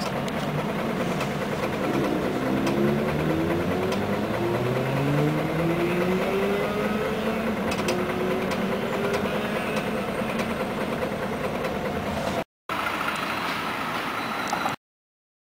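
Scania CN113CLL city bus running and pulling away, heard from on board, its engine note climbing in pitch several times as it gathers speed. The sound cuts off abruptly near the end.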